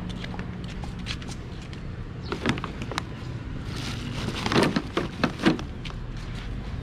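A few knocks and clunks of gear being handled and loaded, loudest about two thirds of the way through, over a low steady hum.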